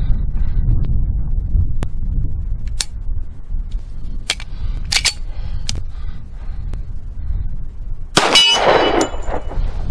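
A few sharp metallic clicks from the Auto-Ordnance 1911 being handled. About eight seconds in comes one .45 ACP pistol shot, followed by the ring of a struck steel plate target.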